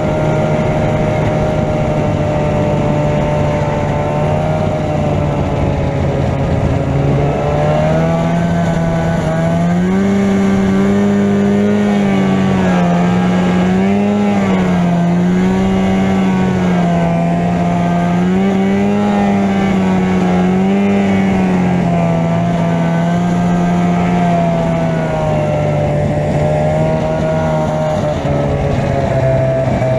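Arctic Cat Jag 440 Deluxe snowmobile's two-stroke engine running under way, its pitch climbing about a quarter of the way in, rising and falling with the throttle for a stretch, then easing back to a lower steady note.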